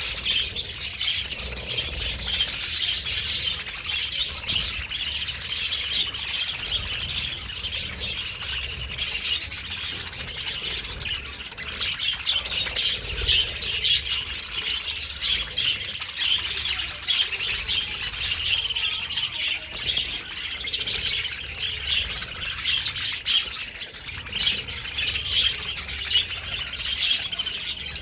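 A flock of budgerigars chattering and chirping continuously, many birds calling over one another in a dense, high-pitched warble.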